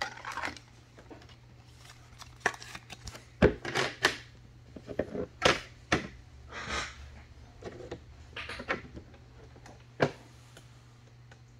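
Scattered clicks, taps and short plastic rustles from handling a trading card in a hard clear plastic holder and setting it on a display stand, over a faint steady low hum.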